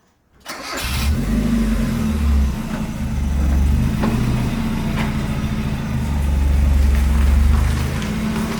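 Car engine running, its revs rising and falling, coming in about half a second in.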